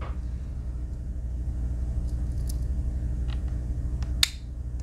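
A few small metallic clicks from a Victorinox Swiss Army knife's tools being handled, the sharpest near the end, over a steady low hum.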